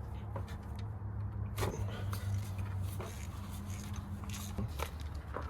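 A steady low hum under a few sharp metal clicks and scrapes, from hand tools working at the spark plugs of a Ford 5.8 V8 engine.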